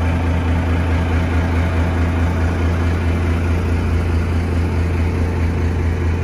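Boat engine idling steadily, a low even drone.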